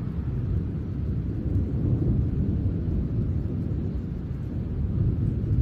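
Thunder rumbling low and continuously, swelling about two seconds in and again near the end.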